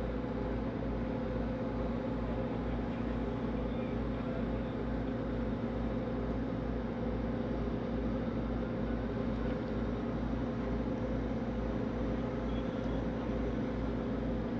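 Ferry engines droning steadily while under way, heard from on board: a constant low hum with a fast, even throb underneath and a steady rushing hiss over it.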